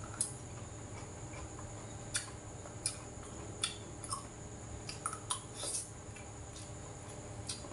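Eating at a table: scattered short sharp clicks and smacks from chopsticks against a rice bowl and from chewing, about eight or nine in all. Under them runs a steady low hum of an electric fan.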